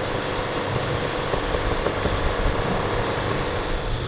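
Steady mechanical hum and hiss of a machine running, with a few faint light clicks.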